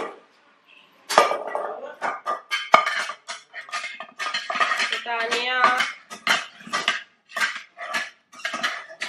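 Table knife sawing through soft pav burgers and clicking and scraping against the plate beneath, in short repeated strokes. A voice calls out in the middle.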